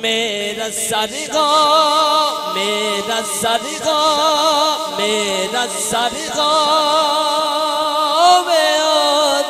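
A man singing a naat unaccompanied through a sound system, holding long notes with a strong, wavering vibrato.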